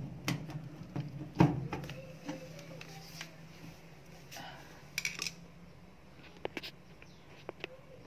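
Clinks and clicks of a screwdriver working at the screws of a washing machine's cabinet panel: a few sharp ones in the first second and a half, then scattered lighter ticks. A low steady hum underneath fades out about halfway.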